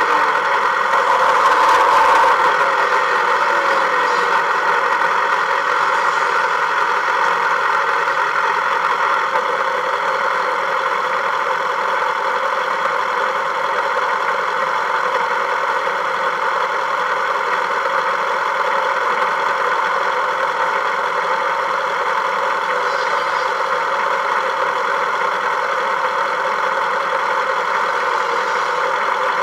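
A vehicle engine running steadily, a little louder in the first two seconds and then even.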